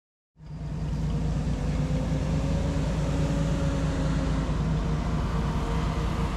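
Heavy diesel engine running steadily, with a low, even hum. It cuts in abruptly about half a second in.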